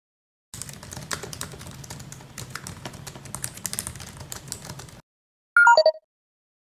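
Fast typing on a laptop keyboard, a dense run of key clicks that stops abruptly. About a second later comes a short falling run of electronic tones, and another electronic blip starts at the very end.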